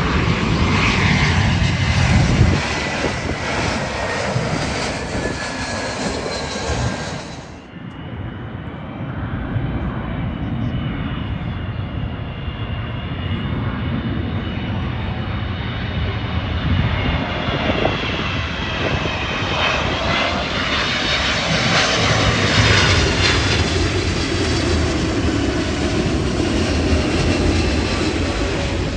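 Jet airliner engines passing close by, a steady noise with several whining tones that glide down in pitch. About eight seconds in the sound changes abruptly, then swells again to its loudest a little after twenty seconds as the whine rises and falls.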